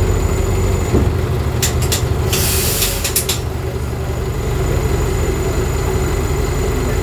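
Mercedes-Benz OF 1418 bus's six-cylinder diesel engine running steadily. About two seconds in there are a few short hisses of compressed air from the bus's air system, one lasting under a second.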